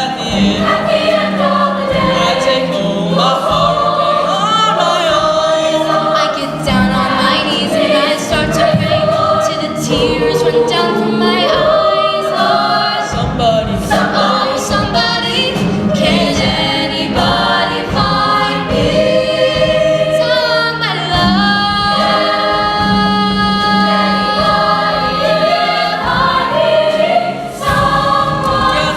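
Show choir singing a song in full voice with music.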